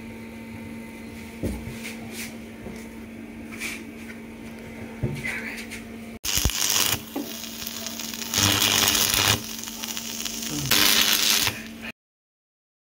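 Stick (arc) welder plug-welding patch steel onto a 1980 Vespa PX150 floor pan. After a quieter stretch with a steady hum and a few light ticks, three bursts of crackling hiss come, each about a second long. The sound cuts off suddenly near the end.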